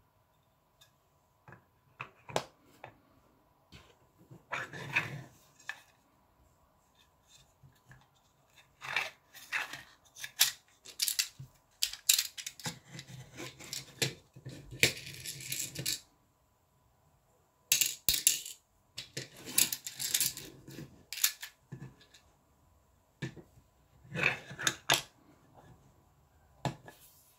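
3D-printed plastic screw-tray sections clicking and knocking against each other as they are lifted apart and snapped back together on their magnets, with loose screws and nuts rattling inside. The sounds come in irregular bursts, some a second or more long.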